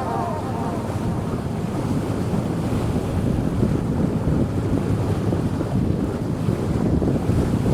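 Wind buffeting the microphone over the steady rush of water, as on a boat under way.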